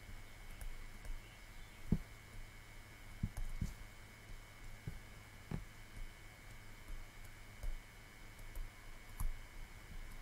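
Pen stylus tapping and scratching on a writing tablet during handwriting: faint irregular clicks and soft knocks, about a dozen, over a steady low electrical hum.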